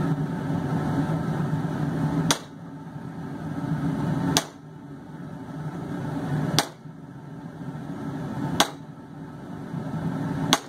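Hammer blows on hot steel, five sharp metallic strikes about two seconds apart, as a blacksmith splits a bar to make split tongs. A steady low roar of the forge runs underneath.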